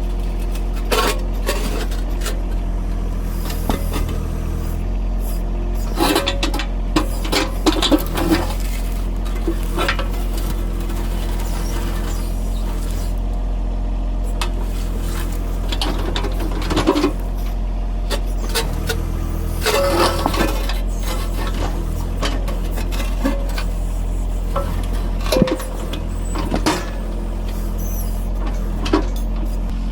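John Deere compact tractor's diesel engine running steadily while its backhoe works rocks, with repeated clanks, scrapes and knocks of the steel bucket and stones against each other. The clatter comes in clusters, busiest about 6 to 8 seconds in and again around 17, 20 and 25 seconds.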